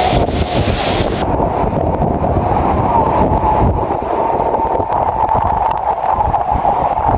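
Loud, steady rush of a monsoon waterfall close by, with wind rumbling on the microphone. The highest hiss falls away about a second in.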